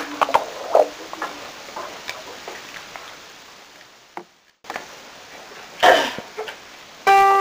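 Children's voices in a small room fade to quiet room noise after about a second. A short loud noise comes about six seconds in. Just before the end a struck musical note rings out with a steady tone.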